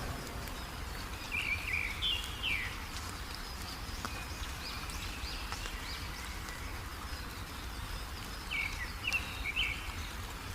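A songbird calling in two short phrases of a few quick, falling notes, one about a second in and one near the end, with fainter chirps between them, over a steady hiss of heavy rain and a low rumble.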